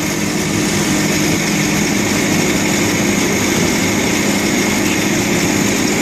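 Skid steer's engine running steadily as the machine creeps forward.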